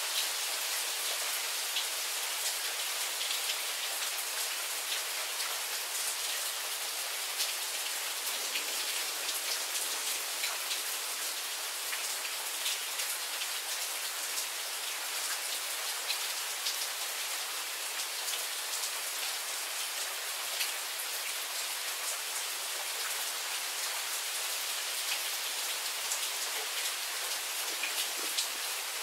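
Steady rain shower: an even hiss with many separate drops ticking.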